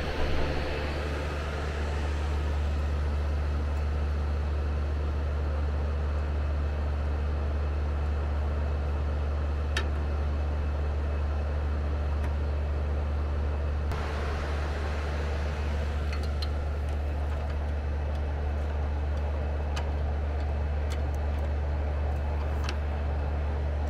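Steady low mechanical hum that holds evenly throughout, with a few faint clicks and taps mixed in.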